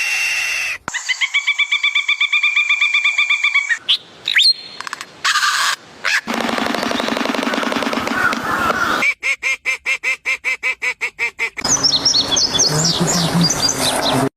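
A series of different animal and bird calls cut one after another, each lasting a few seconds: a fast pulsing trill, a short rising whistle, a rapid run of clicks, and high chirps near the end.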